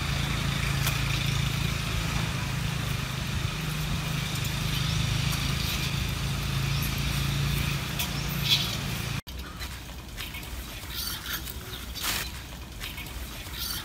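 A steady low machine-like hum with a hiss above it, cut off abruptly about nine seconds in, followed by quieter outdoor background with a few faint clicks.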